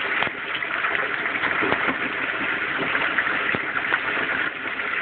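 Hot oil frying a whole turkey in a deep fryer: a steady hiss of bubbling with scattered crackles and pops.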